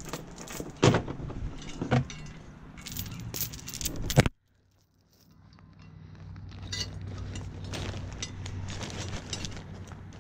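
Metal anchor chain and hardware clinking and rattling as the anchor gear is handled and packed. The sound cuts off abruptly about four seconds in. After that a steady low hum comes up, with more scattered clinks.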